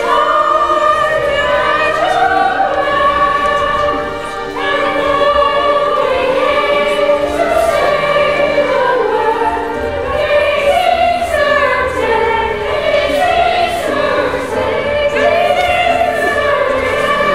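Chorus of young voices singing a musical-theatre choral number together, in long flowing melody lines.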